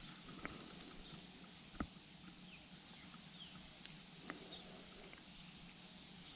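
Quiet outdoor background with three faint handling clicks as a sausage bait is worked onto a fishing hook, and a few faint short bird chirps.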